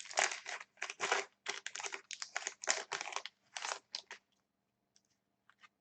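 Trading cards being flipped through and handled, a quick irregular series of papery rustles and snaps that stops a little past four seconds in.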